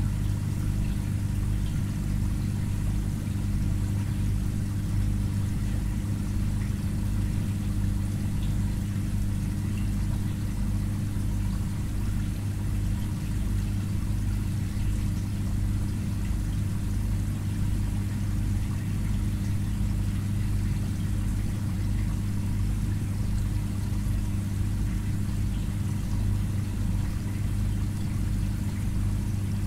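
Aquarium filter pump humming steadily, with a faint wash of moving water.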